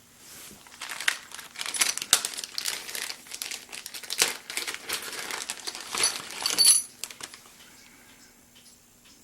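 Crinkling and rustling as something is handled, with many small clicks and knocks. It goes for about seven seconds and stops shortly before the end.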